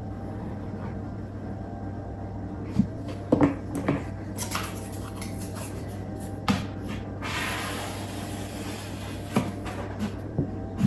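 Cardstock box pieces being handled and pressed together during hot-glue assembly: a scattering of light taps and clicks, with a few seconds of paper rustling and scraping past the middle.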